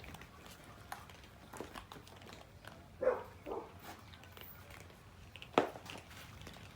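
Cats eating: small irregular clicks and ticks of chewing, with two louder short sounds about three seconds in and a sharp click a little past five seconds.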